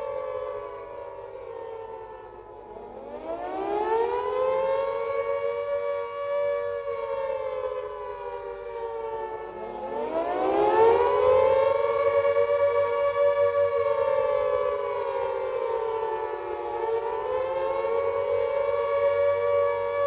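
Gents' Carter air raid siren sounding the wailing warning of a raid. Its pitch sags and then twice climbs steeply from a low growl to a held note, with a shallower dip and recovery near the end. Two close notes sound together.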